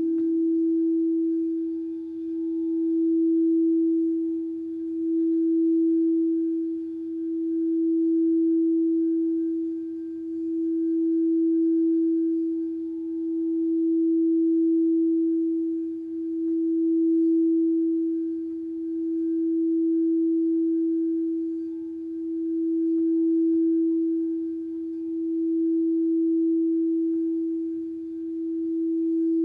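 Singing bowl holding one steady, pure tone that swells and fades in loudness about every two and a half seconds. A second, lower tone dies away in the first second.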